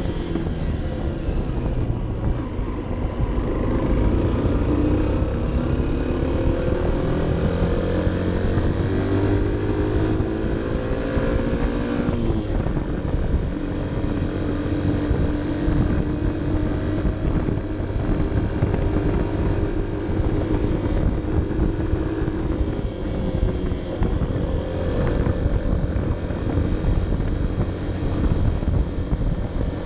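Honda CB 125 F's single-cylinder engine pulling uphill, its pitch climbing steadily for about twelve seconds, then dropping sharply at an upshift and holding steady, with a brief easing and pick-up again about three quarters of the way through. Low wind rumble on the microphone underneath.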